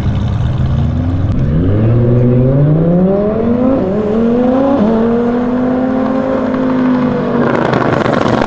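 Twin-turbo Audi R8 V10 accelerating hard from a rolling start, its engine note rising steadily. The pitch dips briefly at a gear change about five seconds in, then holds high. The car passes close by near the end with a loud rush of noise.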